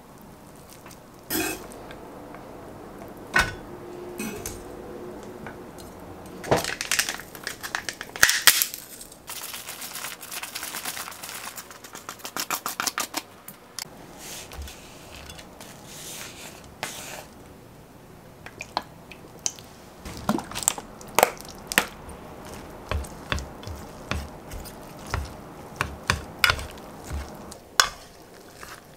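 Kitchen handling sounds: a knife scraping chopped molokheiya off a wooden cutting board, scattered knocks and a quick run of clicks around the middle, then wooden chopsticks tapping against an enamel dish in a steady series while mixing molokheiya with natto.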